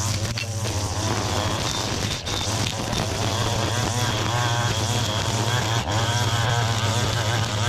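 Gas-powered string trimmer running steadily while cutting tall grass, its engine note wavering under load and dipping briefly twice.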